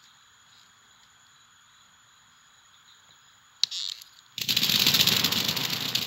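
Animated-film sound effects: faint hiss for a few seconds, a sharp click, then a loud, dense noise made of many rapid ticks starts suddenly about four seconds in and keeps going.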